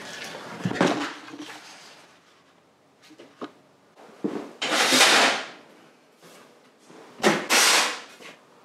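Sheet steel being handled: a steel offcut scraped and rattled as it is pulled from a stack of metal sheets and laid on the steel workbench. The noise comes in three short bursts, about a second in, about five seconds in and near the end.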